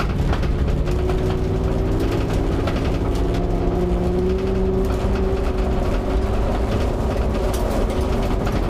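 Engine of the General Lee stunt car, a Dodge Charger, running hard under acceleration on its run-up to a ramp jump, heard from inside the cabin; the engine note climbs slightly over the first few seconds and then holds steady over a heavy low rumble.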